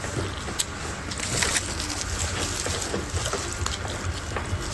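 Close-up eating sounds: a plastic spoon tapping and scraping in a foam takeaway box of fried rice, with chewing. The small clicks are irregular, over a low steady hum.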